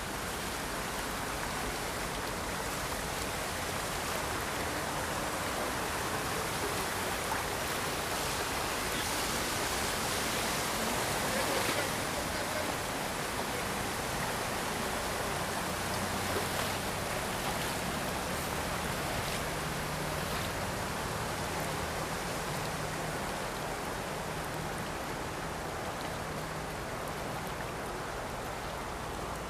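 Floodwater rushing steadily, an even wash of noise that swells a little near the middle. A faint low hum joins it in the second half.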